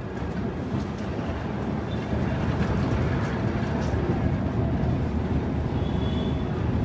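Vintage 1935 Carminati & Toselli tram running along its rails, heard from inside the car: a steady low rumble of wheels and running gear that grows louder about two seconds in, with a brief faint high squeal near the end.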